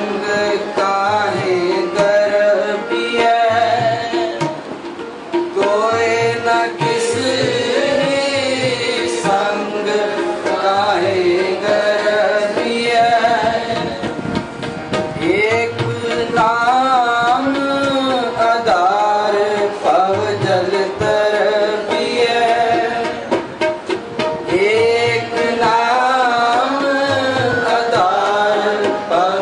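A Sikh devotional hymn (Gurbani shabad) sung with wavering, gliding melodic lines, accompanied by tabla playing a regular beat.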